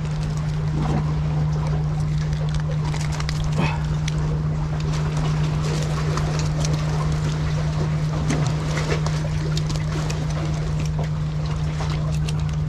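A steady low mechanical hum with a rumble beneath it, engine-like, throughout. Scattered light clicks and taps come from handling a small yellowtail in a landing net with a fish grip and knife while bleeding it.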